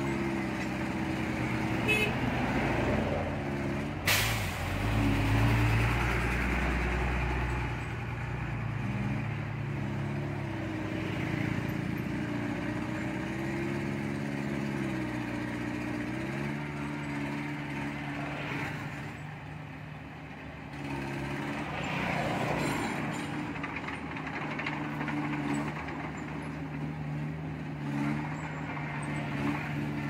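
Diesel engine of earthmoving machinery running under work, its pitch falling and rising again around the middle. A sharp clack about four seconds in is followed by a few seconds of deep rumble.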